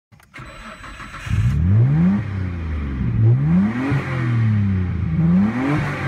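Turbocharged car engine accelerating hard through the gears, heard from inside the cabin. The revs climb three times and drop sharply at each upshift.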